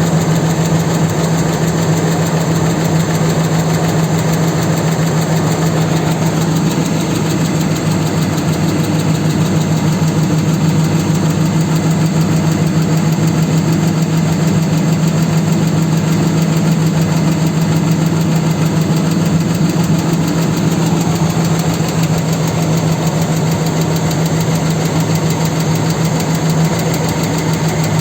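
A 4.7-litre engine idling steadily with a fast, even knock running through it, the engine knock the owner is demonstrating.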